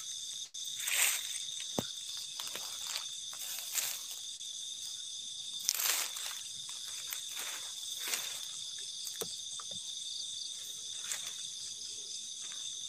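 Night insects calling in a steady high-pitched chorus of several held tones. Scattered rustling crunches come through it every second or two, like steps in dry leaf litter.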